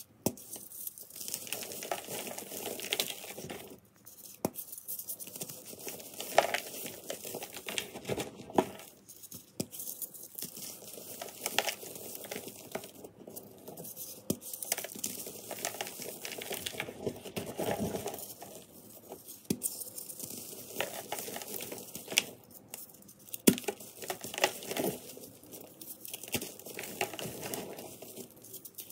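Hands squeezing and crushing crunchy reformed chalk blocks in an irregular run of dry crunches and crumbling, with a sharp crack here and there.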